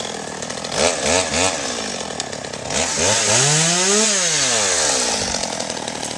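Chainsaw revving up and down: several quick revs about a second in, then a long rise in pitch that peaks about four seconds in and falls away.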